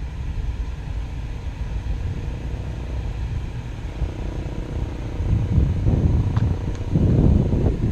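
Mustang drift car's engine rumbling low and steady, swelling louder twice near the end.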